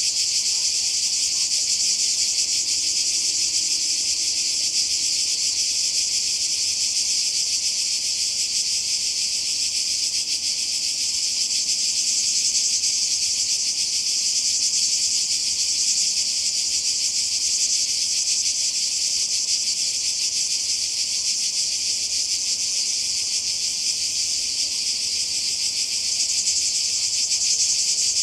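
Chorus of cicadas: a loud, steady, unbroken high-pitched buzz.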